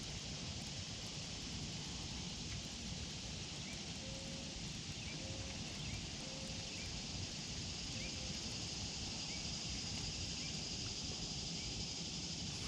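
Outdoor ambience: a steady high hiss, with a bird chirping about once a second and a few short, low, level calls in the middle.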